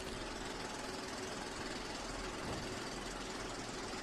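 Old film projector sound effect: a steady mechanical whirring rattle with hiss.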